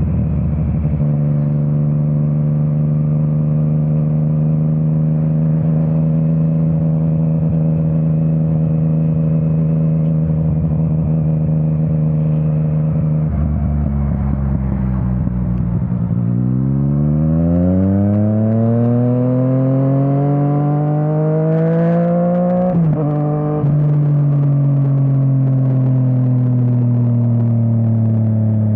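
Yamaha MT-09 inline three-cylinder engine with an Akrapovič exhaust, heard from the rider's seat. It holds steady revs for about half the time, then accelerates in a long rising pitch, breaks briefly at the top, and the revs slowly fall away, with wind noise throughout.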